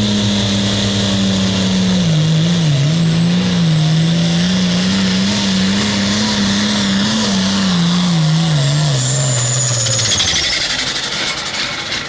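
Turbocharged International pulling tractor's diesel engine running hard under full load as it drags the weight sled, its pitch sagging and wavering as the load bites, then sliding lower until it cuts off about ten seconds in. A high whine winds down as the engine stops.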